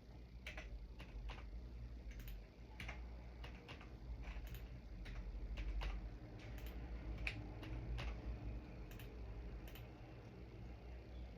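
Computer keyboard keys being pressed in scattered, irregular clicks, about one a second, over a faint steady low hum.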